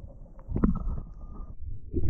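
Muffled, low gurgling water sound heard through a submerged action camera's housing, with a single knock about half a second in, as a bass is released underwater.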